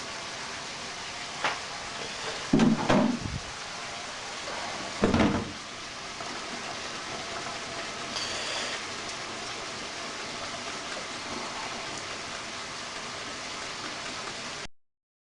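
A saucepan of drained sweet corn and beans knocking against a stainless-steel sink as it is handled: a light knock, then a cluster of louder metal clunks, then another about two seconds later, over a steady background hiss.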